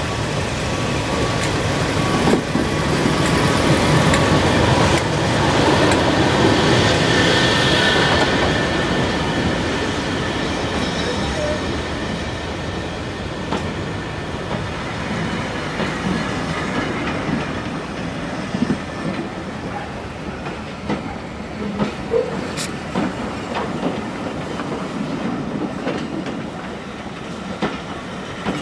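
British Rail Class 31 diesel locomotive D5600 passing slowly at close range, its English Electric engine loudest in the first several seconds. Then its coaches roll past, the wheels clicking over rail joints.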